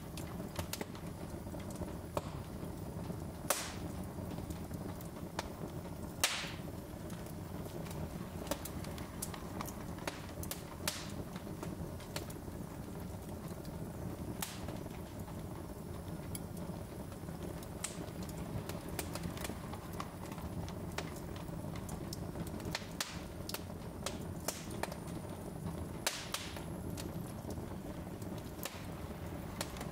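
Wood logs burning in an open fireplace: a steady low rush of flame with sharp crackles and pops at irregular intervals, a few of them louder than the rest.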